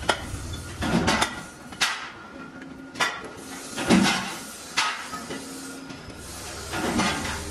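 Irregular metal clanks and knocks as heavy steel wheel discs are handled on a stack and a rim is fitted into a lathe chuck and tightened with the chuck key. The loudest clank comes about halfway through, and a low machine hum is heard at the start and again near the end.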